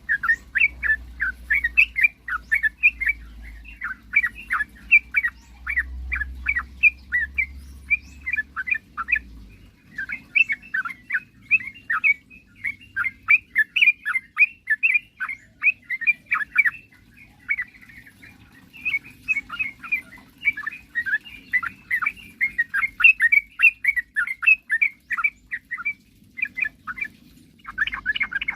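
Yellow-vented bulbul (trucukan) singing a long, rapid run of chattering notes, several a second, with short breaks about nine, seventeen and twenty-six seconds in. A faint low hum runs underneath.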